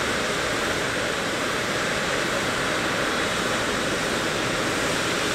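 Steady rushing noise of a Boeing 777 freighter taxiing, an even hiss with no rise or fall.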